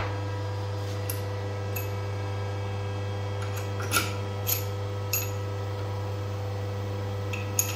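Shock-rebuilding press running with a steady low hum, with a few sharp light clicks as the metal shock parts are handled in it.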